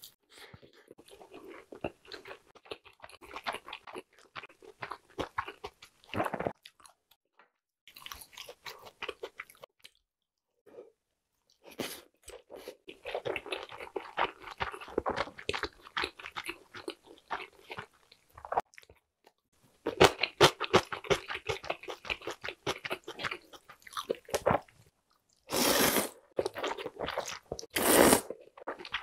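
Close-miked eating of a large meat dumpling: wet chewing and mouth clicks in long bursts, separated by short pauses. Near the end come two loud slurps of thin wheat noodles.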